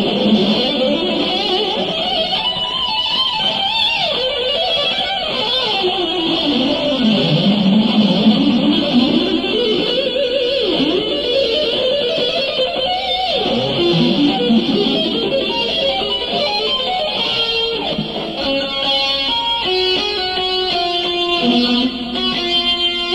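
Electric guitar playing an instrumental line of long swooping glides in pitch, rising and falling. About three quarters of the way in it changes to quick runs of separate, distinct notes.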